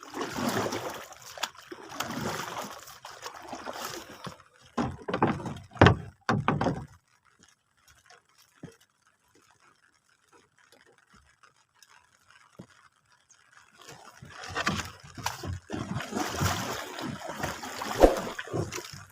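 Water sloshing and splashing around a small fishing boat, irregular, with a near-silent stretch of several seconds in the middle.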